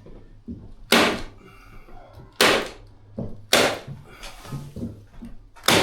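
Four loud thumps, irregularly spaced a second or two apart, with lighter knocks and rustling between.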